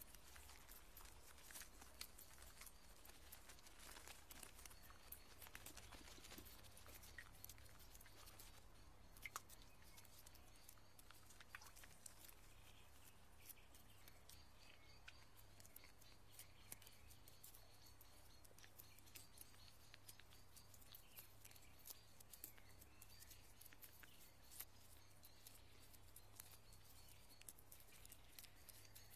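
Near silence: faint scattered ticks over a low steady hum.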